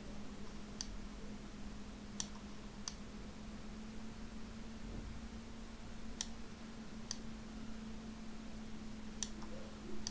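Computer mouse buttons clicking now and then, about seven sharp clicks at irregular intervals, as a map is dragged across the screen. A steady low electrical hum runs underneath.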